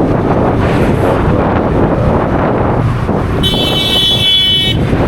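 Wind buffeting the microphone over steady road and traffic rumble. About three and a half seconds in, a high-pitched vehicle horn sounds once for just over a second.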